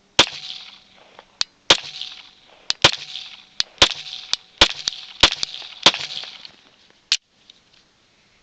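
A handgun firing a rapid string of about eight shots, roughly one every second or less, each crack followed by a short ringing echo, with a few fainter sharp cracks between them; the firing stops a little after seven seconds in.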